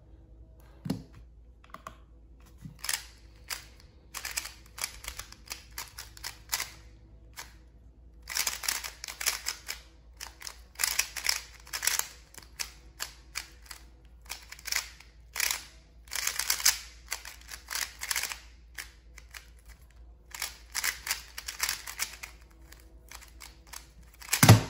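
Qiyi MS 3x3 magnetic speed cube being turned fast through a solve: runs of rapid clicking layer turns broken by short pauses. It ends in one loud knock near the end as the solve finishes and the timer is stopped.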